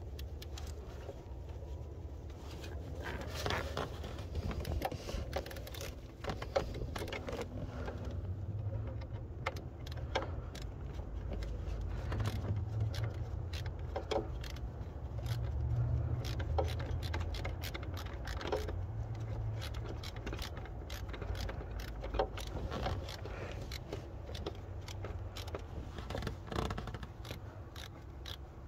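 Small metal hand tools clicking, ticking and scraping against metal as Torx screws are worked loose under a car, irregular through the whole stretch, over a low background rumble.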